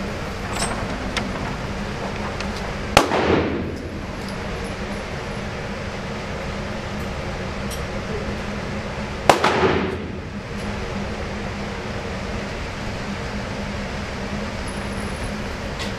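Two gunshots in an indoor shooting range, about six seconds apart, each a sharp bang followed by a short reverberating boom. A steady hum runs underneath.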